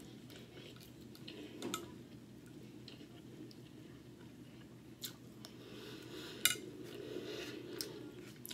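A plastic fork scraping and tapping on a plate while scooping up rice, in faint scattered clicks, the sharpest about six and a half seconds in.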